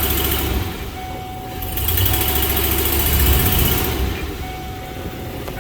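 Ford 4.6 V8 engine running, revved up twice and dropping back toward idle between and after the revs. The engine is being checked for a misfire on cylinder 4.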